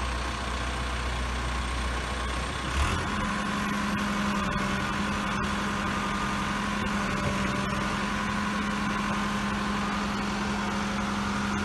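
Caterpillar 416E backhoe loader's diesel engine running at low speed, then stepping up to a higher, steady speed about three seconds in and holding there.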